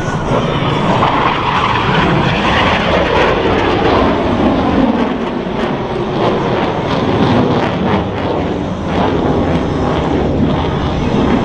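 Boeing F/A-18E/F Super Hornet jet roaring past, its twin turbofans' whine falling in pitch as it goes by, with a crackling rasp in the middle of the pass.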